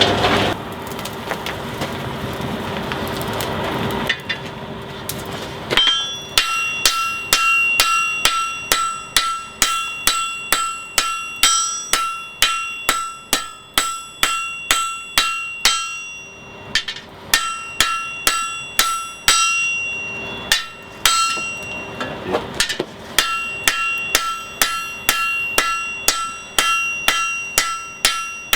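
Hand hammer striking hot steel on an anvil, about two blows a second, each with a ringing tone, in runs broken by two short pauses. Before the hammering starts, a steady rushing noise.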